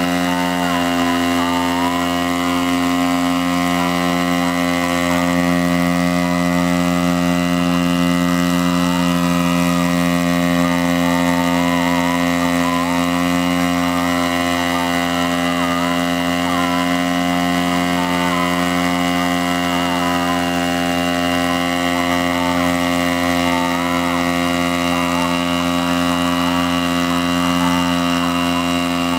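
The 60 cc petrol engine of a hybrid multirotor runs at a steady, unchanging pitch, together with the drone of its propellers, while the craft hovers.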